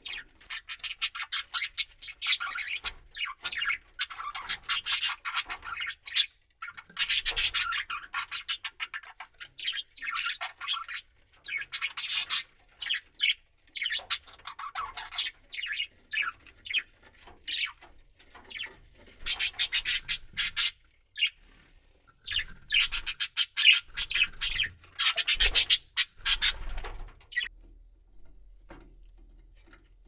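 Budgerigar chattering and warbling in bursts of rapid chatter with short pauses between, falling quiet near the end.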